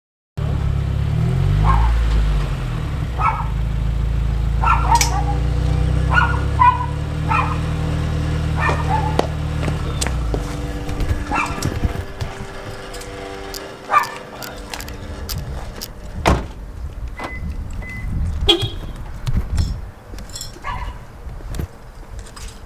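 A car engine running, a deep steady drone for about the first ten seconds that then drops away, with scattered sharp clicks and short higher-pitched sounds over it.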